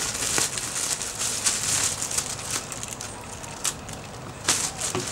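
A clear plastic bag of dried green herbs crinkling and rustling as it is handled, with a few sharp knocks of a kitchen knife on a wooden cutting board.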